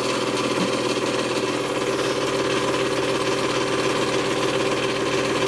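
Electric home candyfloss machine running steadily, its motor and spinning head giving an even hum while it spins melted sugar into floss.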